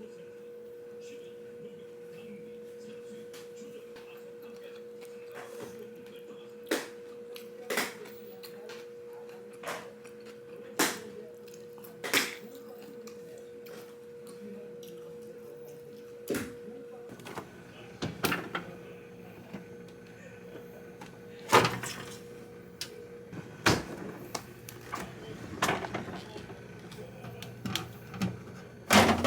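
A steady hum that stops partway through, with a dozen or so separate knocks and clicks, closer together toward the end, like things being handled and doors or lids closed.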